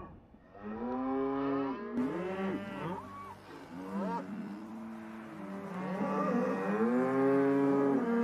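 Highland cattle mooing: a herd giving several long calls, one after another and overlapping.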